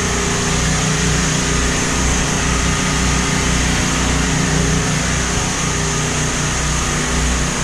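Gasoline portable generators running steadily at constant speed under load: a loud, even engine hum with a low throbbing pulse and a hissy top.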